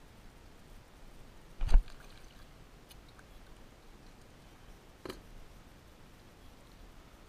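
A loud, short thump about two seconds in and a softer knock about five seconds in, from handling gear in a kayak, over a low steady background hiss.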